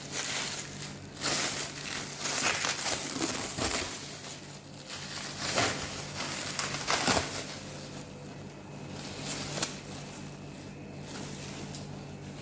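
Packaging being crumpled and rustled by hand as an air rifle is unboxed: irregular crinkling, busiest in the first eight seconds and then thinning out, over a faint steady low hum.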